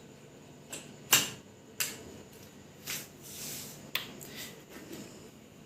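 A handful of short, sharp plastic clicks and knocks, the loudest about a second in: an extension board's plug being pushed into a wall socket and its switches being flicked on.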